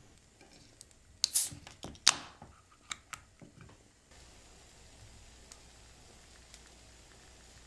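A ring-pull aluminium drink can being opened: two sharp clicks about a second apart, each followed by a short hiss of escaping carbonation, then a few lighter clicks from the tab.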